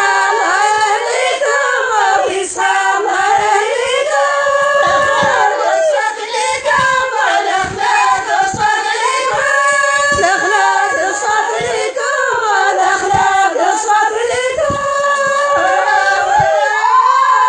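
A song: singing voices holding long, wavering notes, over light percussion.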